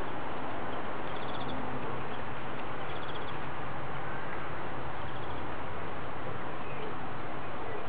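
Garden birds trilling briefly a few times over a steady, even background noise.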